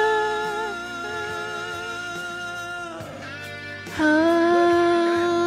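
Indonesian pop ballad karaoke: a backing track with guitar under sung vocals. A held sung note dies away within the first second, the backing plays on softer, and a new long sung note comes in sharply about four seconds in.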